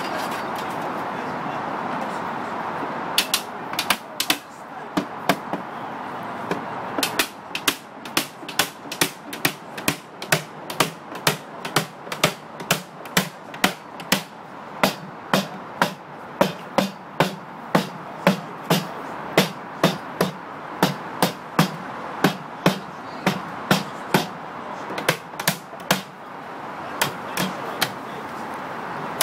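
Cooper's hammer driving a metal hoop down onto a wooden whisky barrel: sharp hammer blows, a few irregular ones at first, then a steady run of about two a second.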